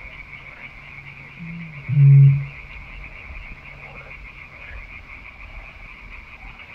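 Eurasian bittern booming: a soft short lead-in note, then one deep boom about two seconds in. A steady high-pitched trilling runs in the background.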